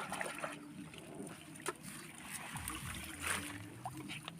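River water splashing and trickling, with scattered small knocks and splashes as hands work in shallow water.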